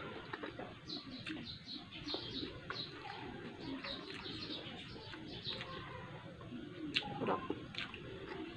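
Birds chirping in a quick run of short high notes, over soft chewing and mouth sounds of someone eating. Two sharp clicks come near the end.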